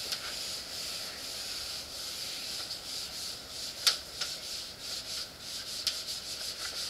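Whiteboard eraser wiping across a whiteboard: a steady scratchy rubbing, with one sharp tap about four seconds in.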